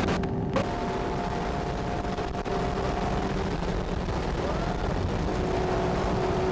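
Sports car's engine and road noise heard from inside the cabin at speed, a steady drone with a constant whine running through it. The sound cuts out in brief gaps in the first half-second.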